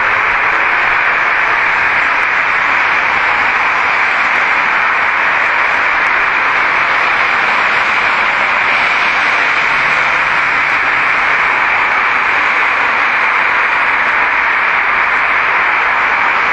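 Loud, steady hiss with no breaks and no distinct sounds in it.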